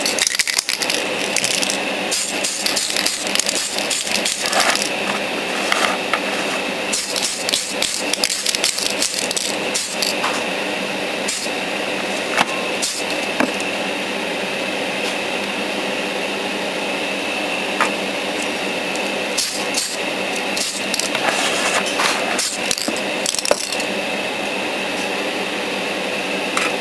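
A spray booth's extractor fan runs with a steady drone, under repeated short bursts of aerosol spray and handling clicks from a Tamiya TS-38 gun metal spray can painting plastic model parts. The bursts come in clusters, a few seconds apart.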